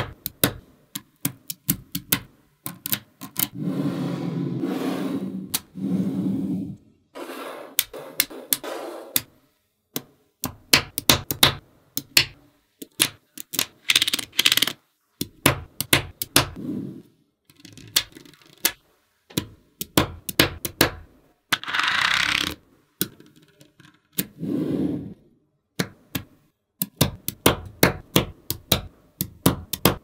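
Small magnetic balls clicking and snapping together in quick runs of sharp clicks. Several stretches of rattling and scraping come between them, as strings of balls slide across a surface.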